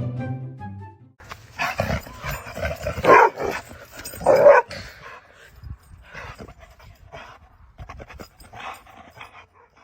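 A dog making a run of short, breathy vocal sounds, the two loudest about three and four and a half seconds in. Background music ends about a second in.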